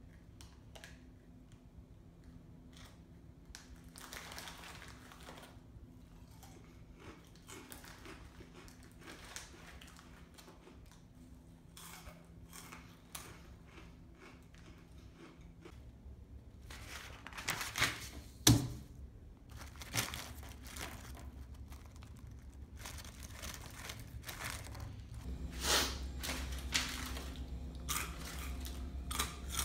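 Small foil Hot Cheetos bag crinkling in the hands as chips are taken out and eaten, in scattered bursts with a sharp crackle about 18 seconds in and busier handling in the last few seconds, over a low steady hum.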